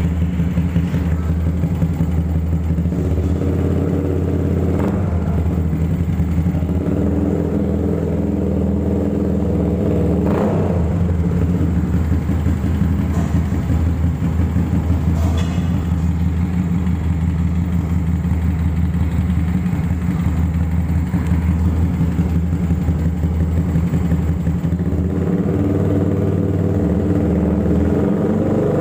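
Yamaha R15 V2's single-cylinder four-stroke engine idling steadily through an aftermarket stainless-steel racing exhaust.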